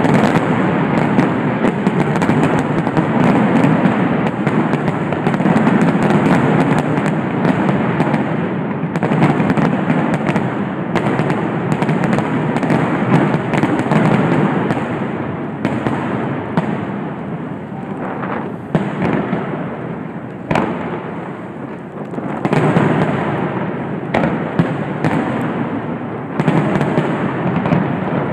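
A professional aerial fireworks barrage at finale pace: shells bursting in dense, nearly continuous bangs and crackling, thinning a little about two-thirds of the way through, then building again. It is heard through a phone's microphone.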